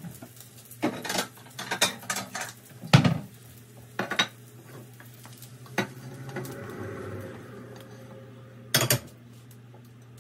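Pans and cutlery clattering at a gas stove: a frying pan lifted and set back down, utensils clinking against pans and plates, in a string of separate knocks with the loudest about three seconds in. A faint steady hum runs underneath.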